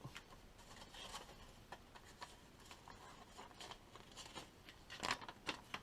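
Faint handling noise: scattered light taps and rustles, with a slightly louder rustle about five seconds in.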